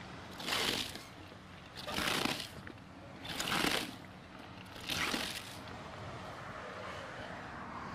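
Shredded white cabbage tossed and squeezed by gloved hands in a bowl: four crisp rustles about a second and a half apart, then the rustling stops.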